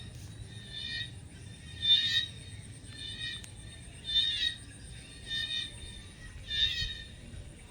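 An animal calling over and over, about once every second and a quarter: each call is a short, buzzy, pulsed note, and louder and softer calls alternate as if two callers answer each other. Under the calls runs a steady, thin, very high whine.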